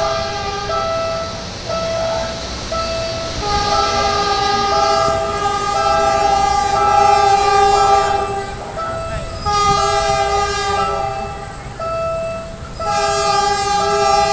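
Diesel train's horn sounding three long, loud blasts as it approaches, the first about three seconds in, over a steadily repeating beeping warning tone.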